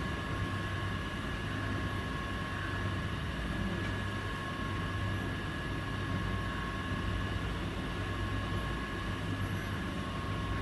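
Steady low hum with an even noisy rumble and two thin, steady high whining tones; no change throughout.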